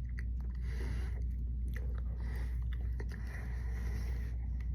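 Close chewing and mouth sounds of a person eating a spoonful of a Blizzard, with a few small clicks and a steady low hum underneath.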